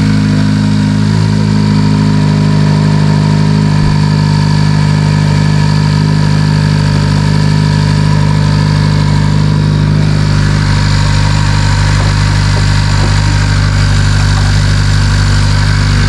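Car engine idling steadily just after being jump-started, its flat battery boosted.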